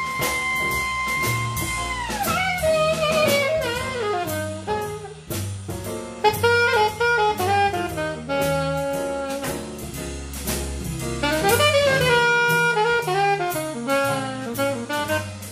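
Live jazz saxophone solo over double bass and drum kit. The saxophone holds a long high note for about two seconds, then falls in a fast run and goes on in quick phrases, with cymbals and bass underneath.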